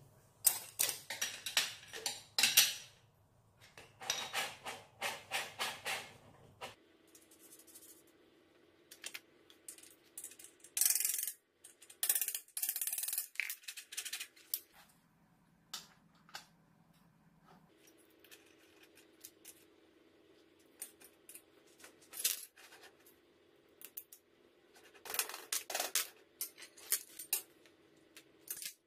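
Bicycle bottom bracket parts being fitted by hand: small metal parts clicking, rattling and scraping in irregular bursts, busiest in the first several seconds, then scattered single clinks.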